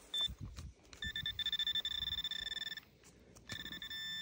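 Handheld metal-detector pinpointer probed into the soil, sounding its high electronic alert tone: quick pulsed beeps that run together into a steady tone, breaking off briefly about three seconds in and then resuming. The tone signals buried metal, the lead bullets still in the hole.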